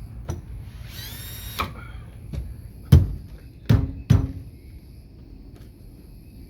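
A short high-pitched squeak about a second in, then three heavy knocks in quick succession.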